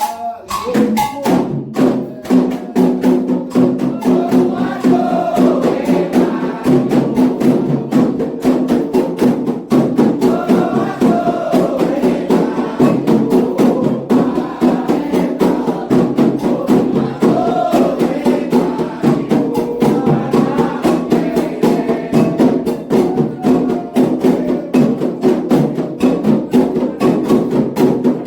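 Candomblé ritual music: atabaque hand drums and a struck agogô bell playing a fast, steady beat under singing.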